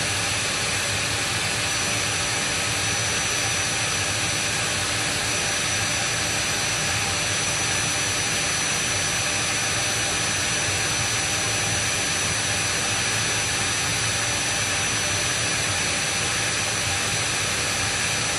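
Dyson V7 cordless stick vacuum's motor running steadily on its high power setting, a loud rush of air with a steady high-pitched whine, drawing air through its cyclone intake.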